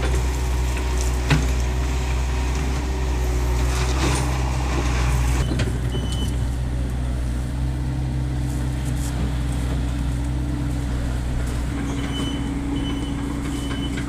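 Excavator engine running steadily, with a sharp knock about a second in. Near the end a short high beep starts repeating, a little under twice a second.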